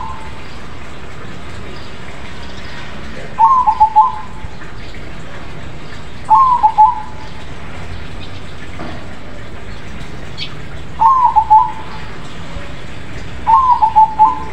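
Crossbred zebra dove (perkutut) cooing loudly: four short phrases of quick, rolled notes, each under a second long and a few seconds apart, over a steady background hiss.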